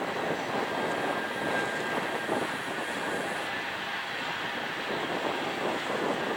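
Union Pacific manifest freight train rolling past, a steady unbroken rumble of the train on the rails.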